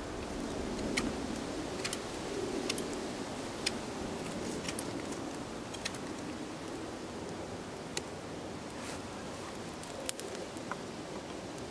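Wood fire crackling: scattered sharp pops, about one a second, over a steady low rush.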